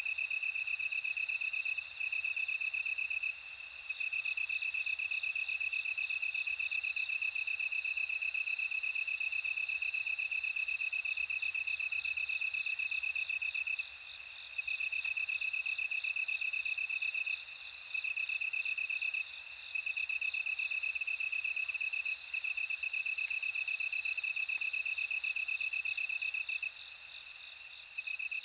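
Bell crickets singing: a steady high trill that breaks off for short pauses every few seconds, with a second, higher ringing song of repeated pulsed phrases over it.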